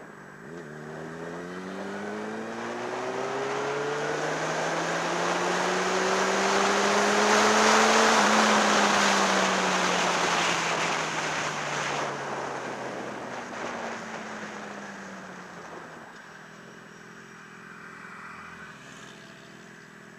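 Motorcycle engine accelerating, its pitch climbing through a couple of upshifts while wind noise on the helmet builds, loudest about eight seconds in. The engine note then falls slowly as the bike slows down, settling to a quieter low running near the end.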